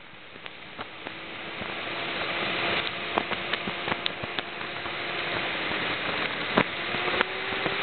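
Vehicle driving fast over a desert dirt track. Road and wind noise grow louder as it picks up speed, over a steady engine tone that climbs slightly near the end. Scattered sharp clicks and knocks come from gravel and bumps.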